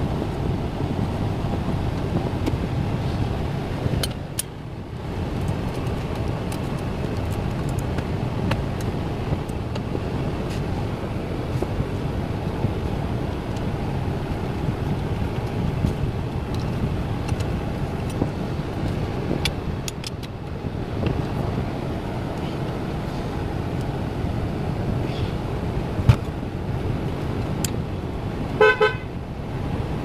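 Steady background road-traffic noise with a few light clicks, and a short pulsing car-horn toot near the end.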